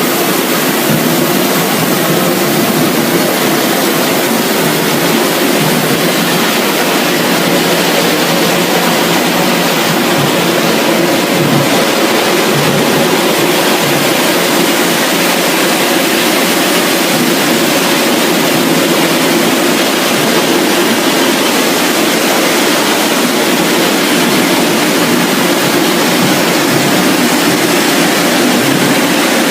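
Steady, loud noise of food-processing machinery on a French fries production line running continuously.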